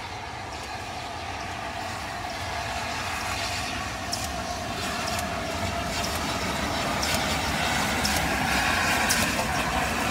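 LNER A4 Pacific No. 60009 'Union of South Africa', a three-cylinder steam locomotive, approaching and running past at the head of its coaches, growing steadily louder, with scattered sharp clicks in the second half.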